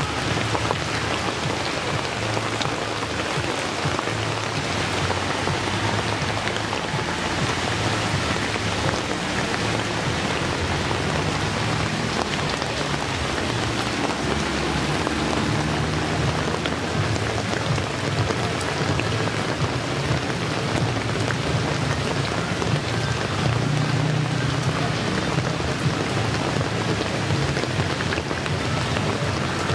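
Heavy rain pouring steadily onto a wet asphalt street and its puddles.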